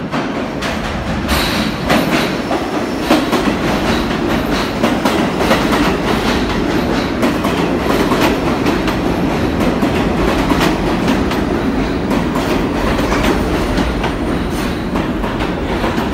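New York City subway train coming into the station and running past at close range: a loud, steady rumble of wheels on rails with many quick clicks as the wheels cross rail joints.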